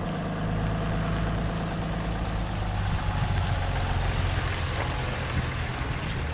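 A vehicle engine running steadily: a low, even hum with a noisy hiss over it.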